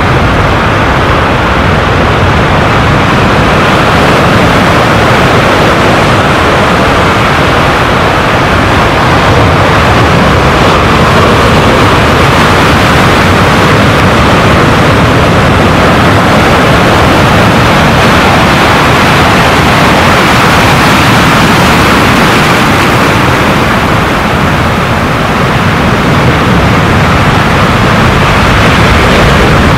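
Large surf breaking on a rocky lava shore: a loud, continuous wash of breaking waves and churning whitewater.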